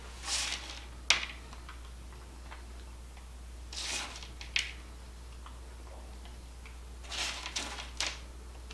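Hands handling chopped pecans and things on a kitchen table: soft rustles with sharp clicks about a second in, again midway, and a short cluster near the end, over a steady low hum.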